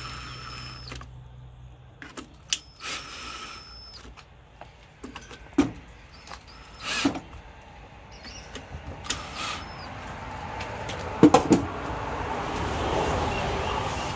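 Reassembly work on a riding mower. A small motor whirs in several short bursts, mixed with scattered clicks and knocks from parts and fasteners being fitted. A quick cluster of sharp knocks about eleven seconds in is the loudest sound.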